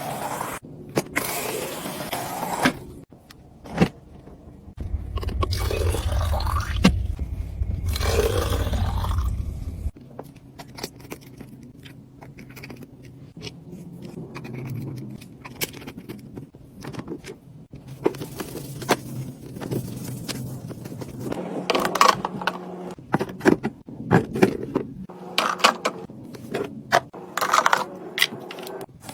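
Restocking sounds: drinks and snack packaging being handled and set in place, with scraping, rustling and light knocks of containers.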